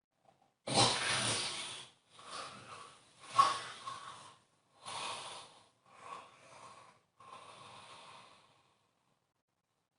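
A sleeping person snoring and snorting through a run of six rough, noisy breaths about a second each. The loudest snorts come near the start and about three and a half seconds in, and the last few breaths are fainter.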